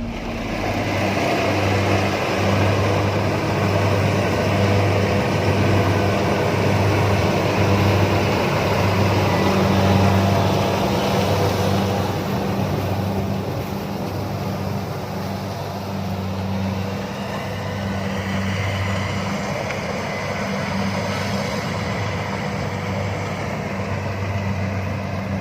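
Rice combine harvester running steadily: a low engine drone under the broad noise of its working machinery.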